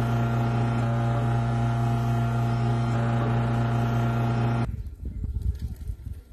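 Espresso machine pump humming steadily while pulling an espresso shot, then cutting off abruptly after about four and a half seconds.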